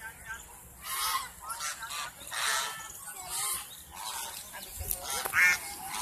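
A flock of white domestic geese honking, a string of separate calls, the loudest near the end.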